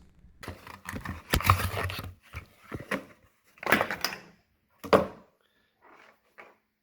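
Packaging and parts being handled: several short rustles and knocks with sharp clicks, the loudest about four and five seconds in, stopping after about five seconds.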